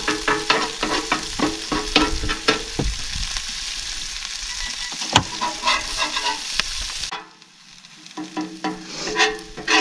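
Breakfast frying in a pan on a camp stove, a steady sizzle with a utensil scraping and clicking against the pan. The sizzle drops away suddenly about seven seconds in, leaving the scraping and clicks.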